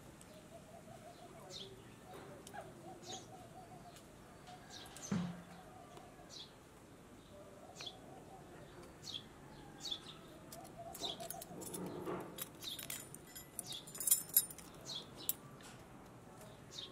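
Small birds chirping: short high chirps repeat again and again, with a lower wavering call coming and going underneath. A few light clinks of a metal spoon on a bowl stand out, the loudest cluster about two-thirds of the way in.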